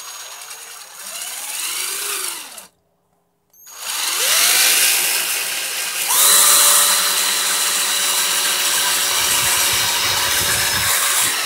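Handheld electric drill with a twist bit drilling a pilot hole for a screw into a thin pine board. The motor whines up briefly and stops about two and a half seconds in, then starts again a second later, rises to a steady high speed and cuts off suddenly at the end.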